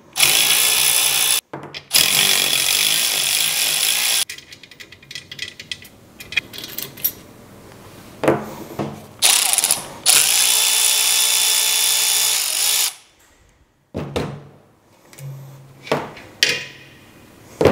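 Cordless ratchet running in bursts as it unscrews the pressure-line fittings from a diesel particulate filter: a run of about four seconds with a brief break near the start, a short burst around nine seconds, then a run of about three seconds. Between the runs come clicks and knocks of the small metal fittings being handled.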